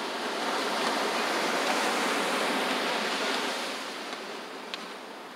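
Ocean surf breaking and washing up the beach, swelling about half a second in and fading away after about four seconds.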